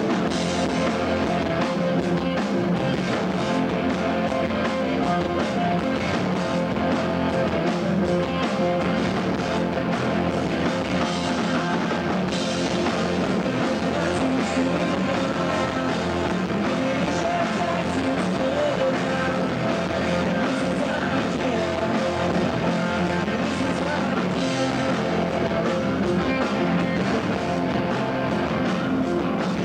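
Live rock band playing loud, distorted electric guitars over a steady drum beat, with singing, recorded from the audience on a 1990s camcorder.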